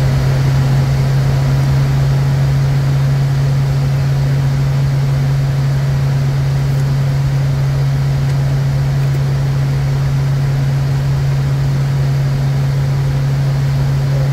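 Steady flight-deck noise of a Bombardier Challenger 350 jet in flight: constant rushing airflow and engine noise with a loud, steady low hum.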